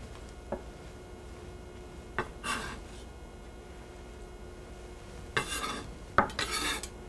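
Chef's knife scraping chopped duck liver across a wooden cutting board and into a small glass bowl. The blade gives a sharp click and a short scrape about two seconds in, then more scraping and another click near the end.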